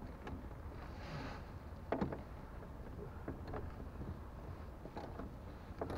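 Sparse light clicks and taps of a wrench working the seat-belt anchor bolt against the roof trim, with one sharper click about two seconds in and a brief rustle about a second in, over a low steady hum.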